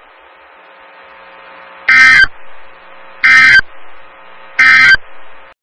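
Three short Emergency Alert System end-of-message data bursts: the harsh two-tone digital warble of the SAME code. Each burst lasts under half a second; the first comes about two seconds in and the others follow about 1.3 seconds apart. A faint hiss and a steady hum lie underneath.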